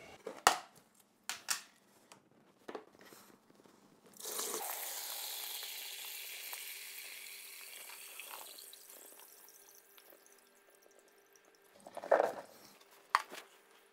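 Gentian-infused white wine poured from a plastic bucket into a towel-lined strainer: a steady splashing pour starts about four seconds in and slowly tapers off over several seconds. Light clicks from the plastic containers come before it, and a knock and a click near the end.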